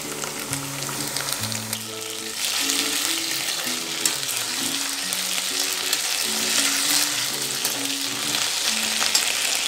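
Chopped onions and ginger-garlic paste sizzling in hot mustard oil in a steel kadhai, with a spatula stirring and scraping the pan. The sizzle gets louder about two and a half seconds in.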